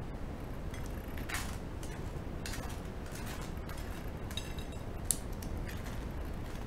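A table knife scraping across toasted bread as tartar sauce is spread on it, a few short rasps over a steady low hum, with one sharp click about five seconds in.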